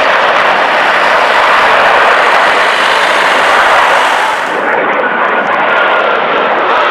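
Loud, steady jet-engine noise from a formation of F/A-18 Hornets flying past. About two-thirds of the way through, the hiss at the top end drops away, and near the end a faint whine falls in pitch.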